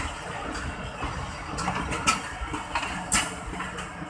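Passenger coaches of the Thall Express train moving slowly beside the platform: a low rumble with irregular sharp clanks and clatters from the wheels and running gear.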